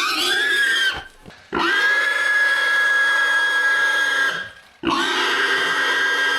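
Domestic pig squealing: a short squeal, then two long, steady, high-pitched squeals of nearly three seconds each, with brief pauses for breath between them.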